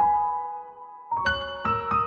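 Background keyboard music, piano-like. A chord is struck at the start and fades, then notes follow more quickly from about a second in.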